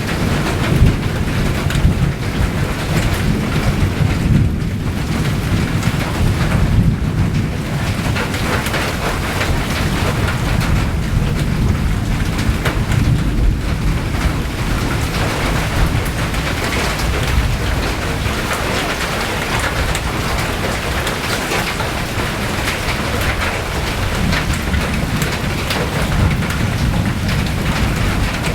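Steady rain falling and pattering on surfaces, with a deep low rumble underneath that is heavier in the first half.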